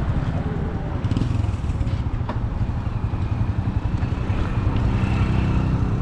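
Boda boda motorcycle engine running steadily while riding, heard from the pillion seat, with wind rumbling on the microphone.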